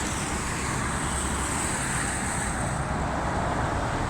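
Steady motor-vehicle and road-traffic noise, a low rumble under a broad hiss. The high hiss fades out about three seconds in.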